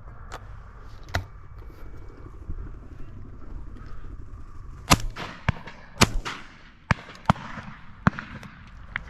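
Shotguns firing at driven pheasants: about nine shots in an irregular run, the loudest ones in the middle of the stretch and the rest fainter, from guns further along the line.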